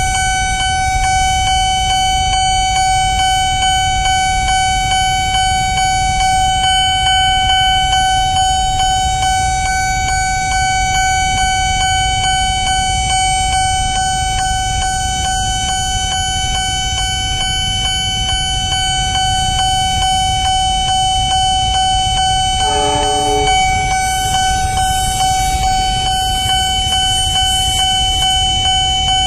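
Railway level-crossing warning siren sounding one unbroken high tone over the low rumble of idling motorbikes and cars waiting at the crossing. A short vehicle horn honk comes about 23 seconds in.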